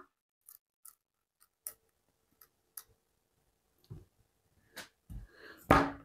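Tip of a QSP Penguin Plus folding knife being stabbed and worked into a pine 2x4: scattered small clicks and creaks from the wood, then one loud knock about five and a half seconds in as the blade is driven in.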